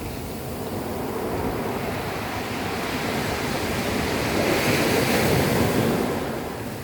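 Sea waves washing up a pebble beach, the water and stones hissing as the backwash drags the pebbles back; the wash grows loudest about five seconds in, then falls away.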